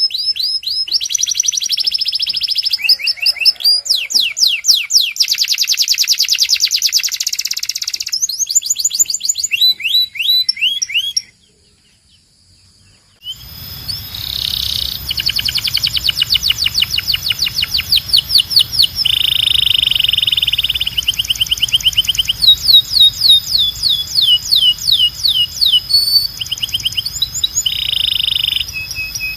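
Domestic canary singing: fast trills and rolls of rapidly repeated notes. About eleven seconds in the song stops for two seconds, then another stretch of song starts over a steady low hum.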